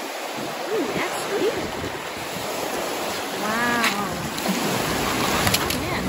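Small lake waves washing in and running back over a pebble shore, a steady wash of surf.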